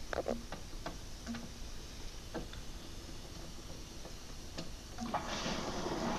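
A few sharp clicks. About five seconds in, the newly installed dishwasher starts up with a steady rush of water filling it.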